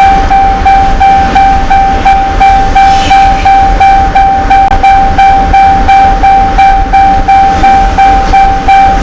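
A loud, steady high electronic tone on one pitch, with brief regular dips about three times a second.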